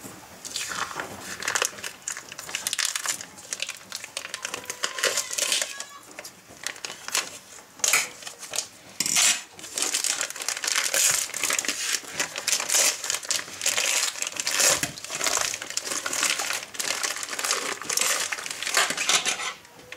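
Plastic wrapping crinkling and rustling in irregular bursts as it is cut with scissors and peeled off a frozen whole chicken.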